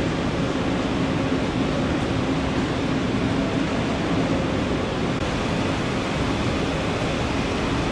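Steady hangar ambience: an even rushing noise with a constant low hum and no distinct events.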